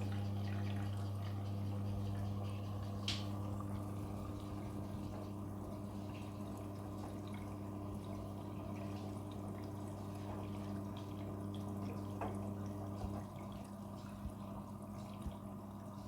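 Front-loading washing machine taking in water at the start of a quick-wash cycle: a steady electric hum with water splashing and dripping inside the drum. Part of the hum drops away about 13 seconds in.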